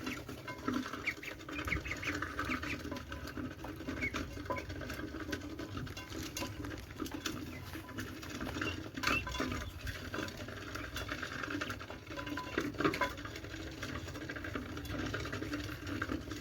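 Ducks feeding, their bills pecking and dabbling in the feed in a dense run of quick small clicks and patters.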